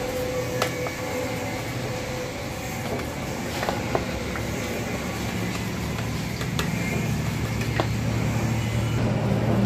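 A steady low mechanical hum, with about five light sharp taps of a brush against the metal of a bare four-cylinder engine block as it is worked around inside the cylinder bores.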